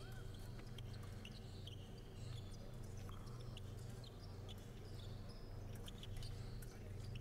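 Faint steady low hum with scattered soft clicks and brief high squeaks.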